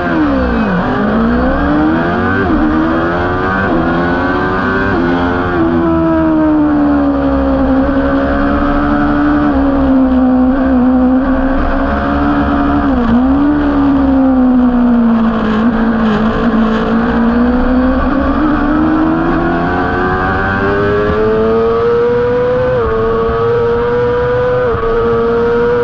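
Honda CBR600RR inline-four racing engine heard from on board at race pace, with wind rush. The revs drop sharply right at the start as the bike brakes, then climb through several quick upshifts. They hold around mid-range through the middle with one brief dip, then rise again with more upshifts near the end.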